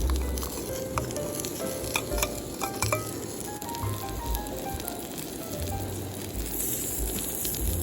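Food sizzling steadily on a hot iron griddle, with a few sharp clicks in the first few seconds. Low rumbling buffets of wind on the microphone come and go.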